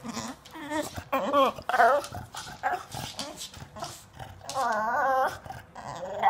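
English bulldog whining and grumbling in a run of wavering, pitched calls, a few short ones about a second in and a longer one near five seconds: vocal protest at being kept off the couch.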